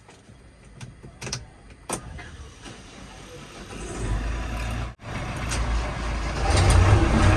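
Diesel engine of a JCB 3DX backhoe loader running, with a low rumble that swells from about halfway through and is loudest near the end. A couple of sharp clicks come about one and two seconds in.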